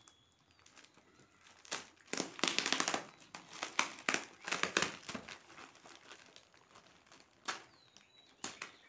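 Black plastic packaging crinkling and rustling as hands unwrap a parcel. The crinkling comes in irregular bursts, loudest from about two to five seconds in, with a few sharp single crackles near the end.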